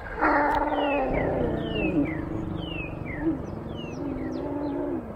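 Lions mating out of sight in the bush: one long, drawn-out call that begins just after the start, shifting a little in pitch, and stops about five seconds in. A bird's short falling whistles repeat over it throughout.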